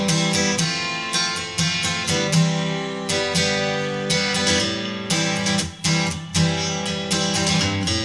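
Background music of strummed acoustic guitar, with chords struck every half second or so and left to ring.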